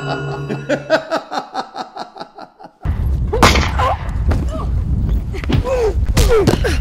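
A pulsing electronic sound effect with a ringing tone, about four pulses a second, fading out. About three seconds in it cuts suddenly to a loud fist-fight soundtrack: heavy rumbling noise, sharp hits and short strained voice sounds.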